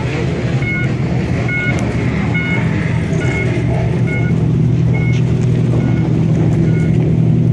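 Modified classic Japanese cars idling and creeping forward in an exit queue, a steady deep exhaust rumble that grows a little louder toward the end. A short electronic beep repeats about once a second.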